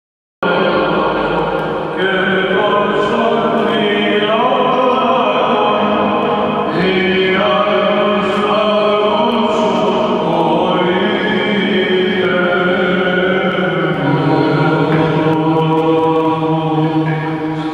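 Greek Orthodox Byzantine chant: singing male voices carrying a slow, drawn-out melody with gliding notes, starting about half a second in.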